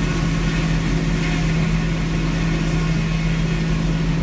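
Sawmill's Cummins diesel power unit running steadily at an even speed.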